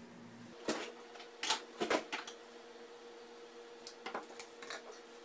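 Hands handling fabric and ribbon: a handful of short rustles and light clicks, scattered and clustered in the first half, over a faint steady hum.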